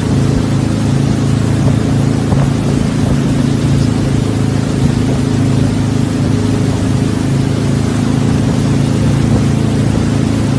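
Loud, steady engine drone: a low hum with a hiss over it.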